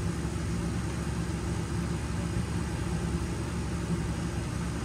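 A motor runs steadily in the background with an unchanging low hum.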